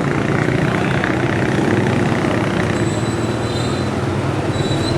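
Street traffic with a motor vehicle's engine running close by, a steady rumble.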